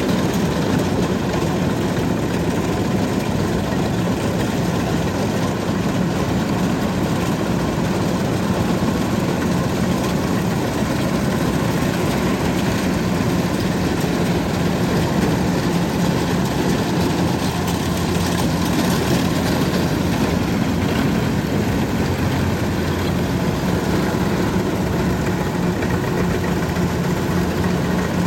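Kubota DC93 rice combine harvester's diesel engine and threshing machinery running steadily under load while harvesting, a constant low drone with an even mechanical rattle.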